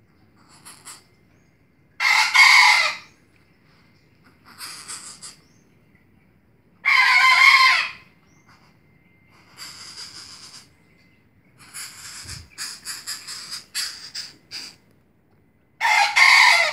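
A tame Javan coucal giving short, harsh, rasping calls in separate bursts: three loud ones, with quieter calls and a quick run of short sounds between them.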